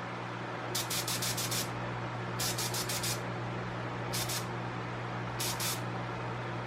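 Short bursts of air hissing from a tire inflator filling a motorcycle inner tube to low off-road pressure, about 15 psi: a run of quick puffs about a second in, then shorter bursts every second or so, over a steady low hum.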